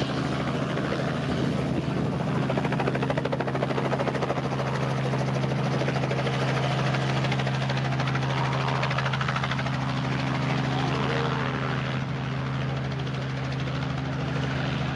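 Helicopter running steadily: a constant low hum with a fast, even pulsing from the rotor blades.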